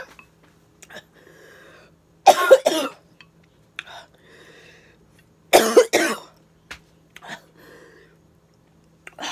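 A woman coughing hard in two short bouts, each of a couple of coughs, about two and a half and five and a half seconds in, with another starting at the very end, as she eats mussels in 2x spicy sauce. Fainter breathing sounds come between the coughs.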